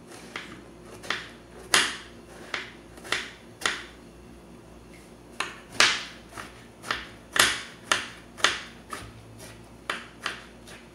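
Chef's knife finely chopping scooped-out eggplant flesh: sharp knocks of the blade striking the cutting surface, irregular, about one or two a second, with a brief pause around four seconds in.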